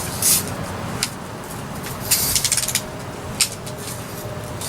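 BB guns being worked: a short puff of air, a few sharp clicks and a brief rattle of quick clicks, from a BB gun that is failing to shoot properly.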